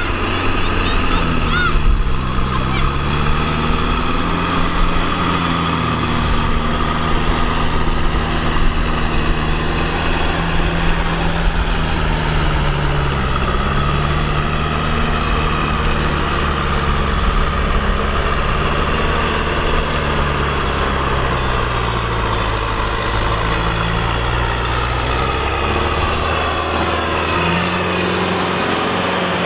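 Kubota M6040 tractor's diesel engine running steadily as it works a wet paddy field. Its pitch sags and recovers several times, about two seconds in, around the middle and again after twenty seconds, as the engine speed changes under load.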